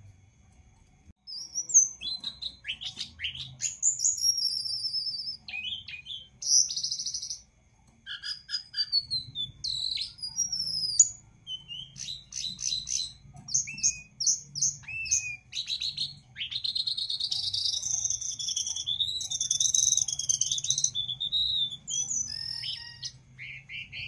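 Caged jongkangan songbird singing energetically in a long run of varied whistled phrases: quick rising and falling notes and chattering runs, with a sustained warbling stretch in the second half.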